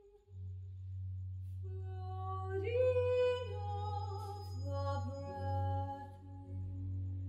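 Bowed double bass holding a low sustained note that starts just after the opening, with a woman singing a slow melodic line over it from about two seconds in.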